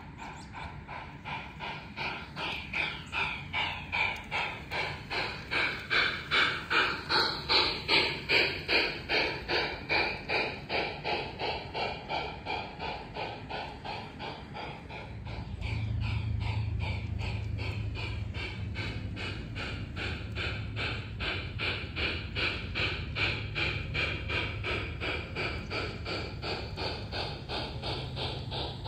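G-scale LGB model train running on garden track, with a rhythmic pulsing about twice a second. The pulsing grows louder to a peak about eight seconds in, then eases off. A low steady hum comes in about halfway through.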